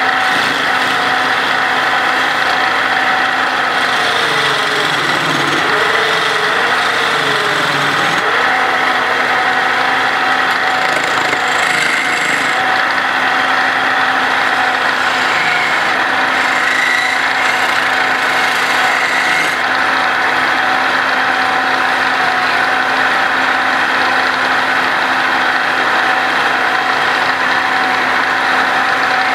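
Wood lathe running steadily with a turning tool held against a spinning wooden sofa leg: a constant mechanical hum with the steady hiss of the tool cutting the wood.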